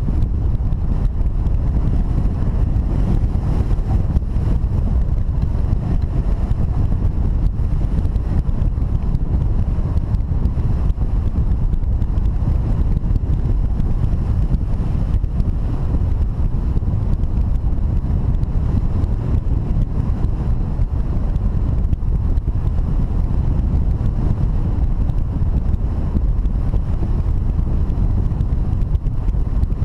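Wind rushing over the microphone of a camera mounted on a hang glider in flight: a steady, low rumble of airflow with no breaks.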